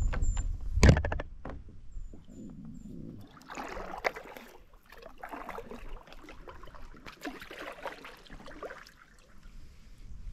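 Hobie pedal kayak's foot drive rumbling, stopping with a knock about a second in, followed by softer water sloshing and splashing around the kayak.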